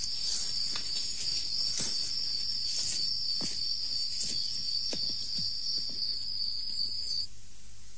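Crickets trilling in a steady high chirr, with a few faint scattered knocks; the trill cuts off suddenly about seven seconds in.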